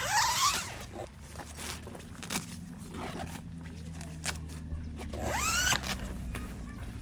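A zipper pulled twice, each pull a quick rising zip: once right at the start and again about five seconds in. Light clicks and handling sounds fall between the pulls.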